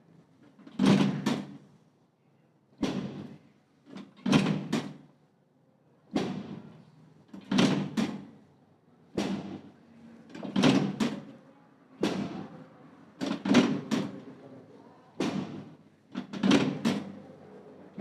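Sharp knocks or thuds repeating in a steady rhythm, roughly one every one and a half seconds, with every other one doubled.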